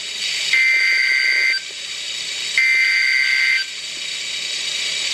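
NOAA Weather Radio SAME alert header: two bursts of about a second each of screechy two-tone digital data, about a second apart, with radio hiss between. This is the coded header that opens a new warning broadcast.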